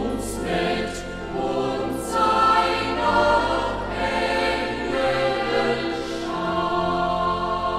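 Choir singing a German Lutheran chorale, with clear sung consonants in the first few seconds; from about six seconds in, a chord is held.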